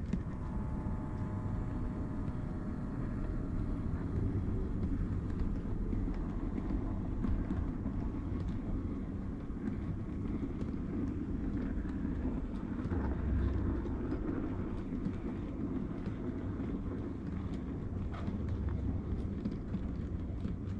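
00-gauge model train running on the layout: a steady low rumble of the wheels and motor, with small clicks as the wheels pass over rail joints and pointwork. A thin whine fades out after the first few seconds.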